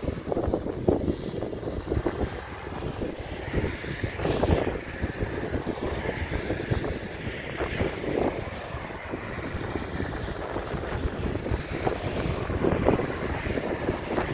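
Wind buffeting the microphone in uneven gusts, with the steady rush of road traffic passing on the highway below.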